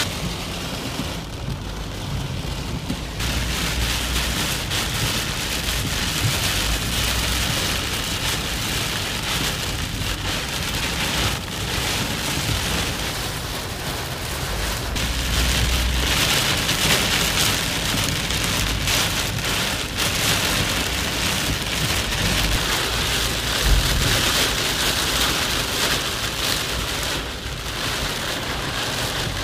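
Heavy rain beating on a car's roof and windows, heard inside the cabin as a dense, steady patter, with one sharper knock late on.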